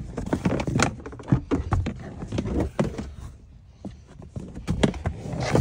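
Irregular knocks, thumps and scraping as a stiff rubber all-weather floor mat is pushed and worked into a car's second-row footwell. The knocks ease off for a moment a little past halfway, then pick up again with a louder one near the end.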